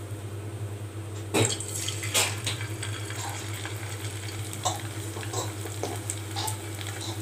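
Masala-coated prawns dropped into hot oil, sizzling and crackling as they start to deep-fry. Two louder sharp sounds come about one and a half and two seconds in, over a steady low hum.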